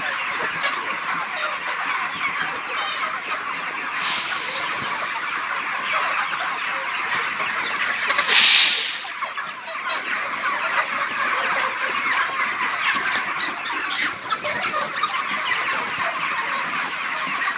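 A flock of desi chickens clucking continuously, with one short, loud, noisy burst about eight seconds in.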